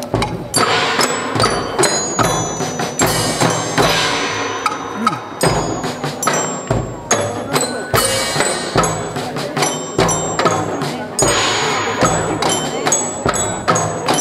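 Live march-style festival hayashi played on a Dutch-ship float: a big bass drum and snare drums beat a steady march while bell lyres ring out the melody in high metallic notes.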